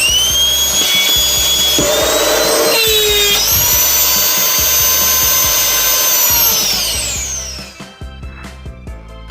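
Vacuum cleaner's 1.6 hp AC motor, run through its speed controller, whining as it spins up. It dips in speed for about a second and a half, jumps back to a high, steady whine, then spins down near the end.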